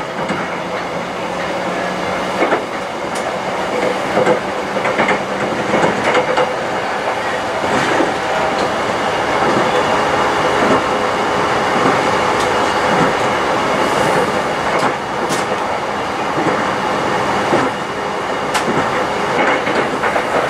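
Electric train running at speed, heard from inside the passenger car: a steady rolling rumble and hiss of wheels on rail, broken by scattered clicks and knocks from the wheels.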